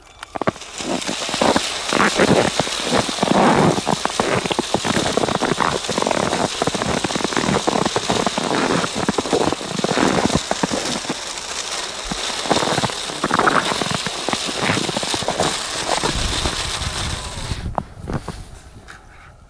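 Snow crunching and crackling in a dense, irregular stream as a small motorised Lego train ploughs through it along its track. The sound drops away near the end.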